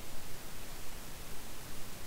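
Steady hiss of background noise with no distinct events.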